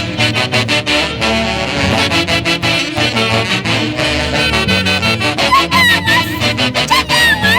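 Mantaro Valley Santiago music played by a band with saxophones and brass over a quick, steady drum beat. High sliding notes rise and fall over it in the last two seconds.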